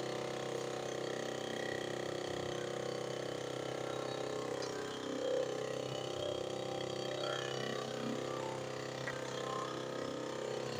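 Electric backpack sprayer's pump motor running with a steady hum while spraying pest repellent.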